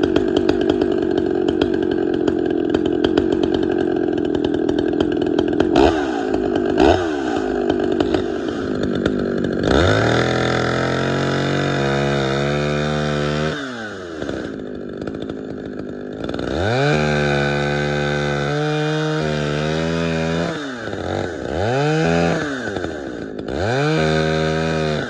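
Two-stroke chainsaw idling with a couple of quick throttle blips, then revved to full throttle three times, its pitch dropping as it lugs under load before falling back to idle. It is being tested after carburetor tuning; the high-speed mixture is judged just about right, and the lugging is put down to a very dull chain.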